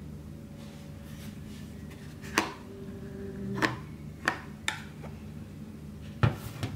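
Red plastic hard case of an MSR PocketRocket 2 stove being handled, its snap latch and lid giving about five sharp plastic clicks, the loudest near the end.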